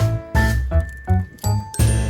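Instrumental background music with a pulsing bass line and high ringing notes near the end.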